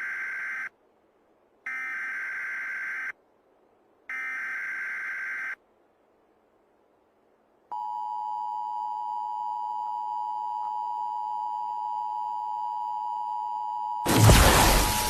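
Emergency Alert System warning tones: three digital data bursts of about a second and a half each, a pause of about two seconds, then the steady two-tone attention signal from about halfway through. About a second before the end a loud boom with music cuts in over the tone.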